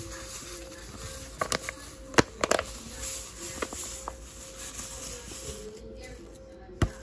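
Faint background music, with a few sharp crinkles and clicks from the paper cake-mix bag as the powder is poured out. The loudest crinkle comes about two seconds in.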